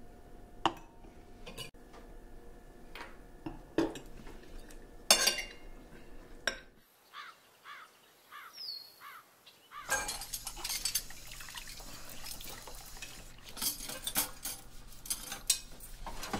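Sharp clinks of cutlery and glassware on dishes, then a near-silent gap with a short run of chirps. After that a kitchen tap runs into the sink while dishes are washed, with more clinks of plates and cutlery.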